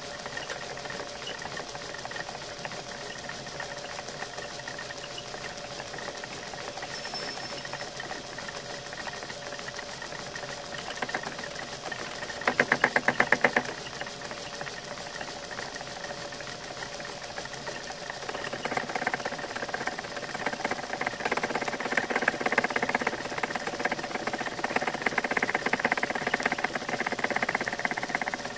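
Metalworking lathe running with a high-speed-steel tool fed slowly through an interrupted cut across a facemill arbour's drive keys: a steady machine hum with the tool knocking as it meets the keys. A brief loud, rapid rattle comes about halfway, and the cutting grows louder and rougher over the last third.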